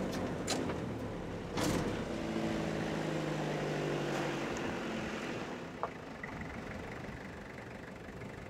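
A motor vehicle's engine running steadily, its sound slowly fading away, with two sharp clicks in the first two seconds.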